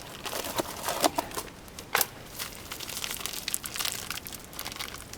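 Rustling with scattered sharp clicks and taps as parts and tools are handled during a brake job, with the loudest click about two seconds in.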